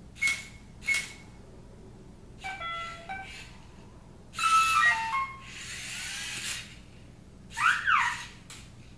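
Parrot Jumping Sumo robot performing animation tricks with its sci-fi sound theme: a string of short electronic beeps, blips and whooshing bursts, ending with a pair of sweeping rising-and-falling chirps.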